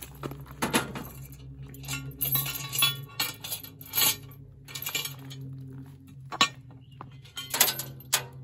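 Cast-iron Dutch oven lid and metal lid lifter being handled: a string of metal clinks and knocks as the coal-covered lid is lifted off the pot, over a steady low hum.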